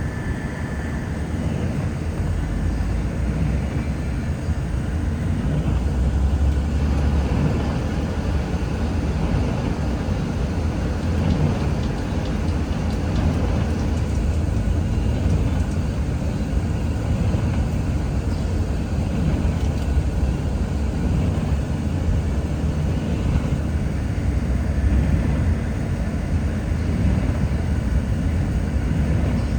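Steady road and tyre noise of a car driving on a wet highway, heard from inside the car, with a heavy low rumble.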